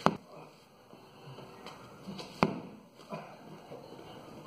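Two sharp smacks of kicks landing on a hand-held padded kick shield, about two and a half seconds apart, with a fainter knock shortly after the second.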